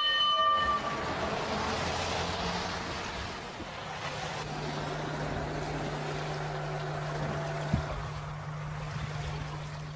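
Fire engine driving past on a wet road: engine and tyre noise swells in the first few seconds and then eases, leaving a steady low hum.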